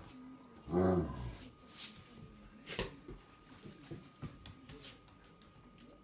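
Dogs playing tug-of-war over a towel: one loud, pitched growling vocalization about a second in, then quieter growls and scuffling, with a sharp click a little before the middle.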